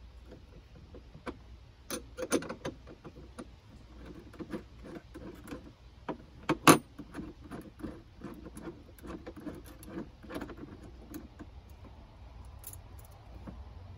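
Scattered small metal clicks, clinks and light rattles of cable lugs, nuts and wires being handled at battery terminals, with one sharp clack about seven seconds in.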